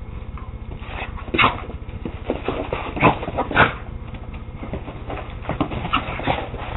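Terriers, a West Highland white terrier and a Scottish terrier, at play, giving a run of short yips, whimpers and barks, the loudest about a second and a half in and twice around three seconds in.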